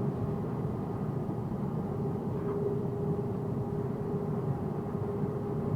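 Steady road and engine noise inside a moving box truck's cab, with a constant mid-pitched hum running throughout.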